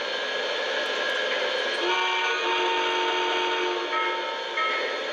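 Multi-chime steam whistle from the onboard sound system of an O gauge model Milwaukee Road Hiawatha streamlined steam locomotive standing still: one long blast about two seconds in, then short toots near the end, over a steady hiss.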